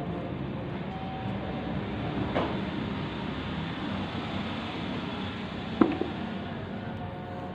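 Steady rumbling background noise, with two brief knocks, the louder one about six seconds in.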